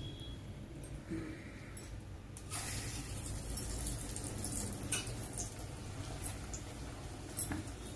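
Dal vada batter dropped into hot oil in a kadai, sizzling from about two and a half seconds in with a steady hiss, with a few faint clicks.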